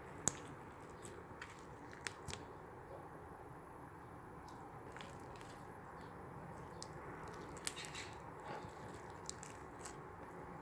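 Clear slime mixed with frog-egg beads being worked by hand: faint squishing with scattered sharp clicks and crackles, the loudest about a quarter second in.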